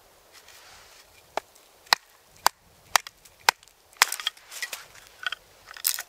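A piece of firewood is split into kindling with a knife: five sharp wooden knocks about half a second apart as the blade is struck into the wood, then a run of cracking and splintering as the wood splits apart.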